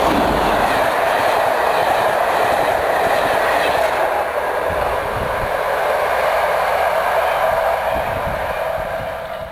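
A Class 37 diesel-hauled passenger train passing close at speed: the locomotive goes by, then its coaches roll past with a loud, steady rush and a few wheel knocks over rail joints.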